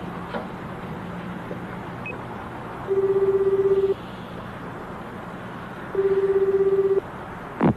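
Telephone ringback tone on an outgoing call: two one-second rings of a low steady tone about three seconds apart, the 400 Hz one-second-on, two-seconds-off pattern used in Japan, heard through the handset while the other end rings. A steady low hum runs underneath.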